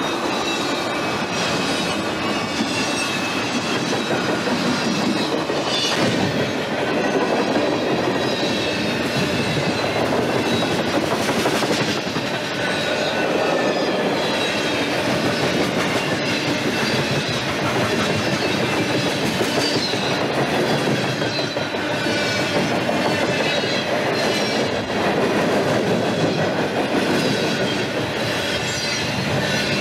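Norfolk Southern freight train's cars rolling steadily past, the wheels clattering over the rails with some high-pitched wheel squeal.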